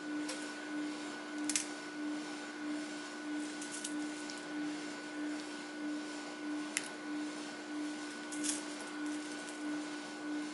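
A steady droning hum that swells and fades in an even slow pulse, with a few light clicks.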